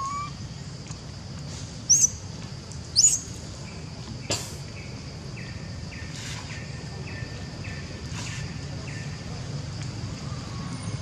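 Two short, high-pitched squeaky calls about a second apart, each sweeping quickly in pitch, over a steady low background hum.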